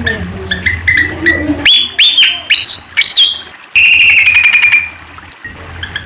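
Malaysian pied fantail (Rhipidura javanica) singing: a rapid run of short chirps, then sharp rising and looping whistled notes, and near the middle a fast, even trill that slowly falls in pitch.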